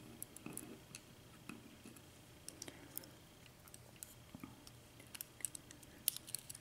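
Faint, scattered light clicks of small metal lock pins being handled, coming more often near the end.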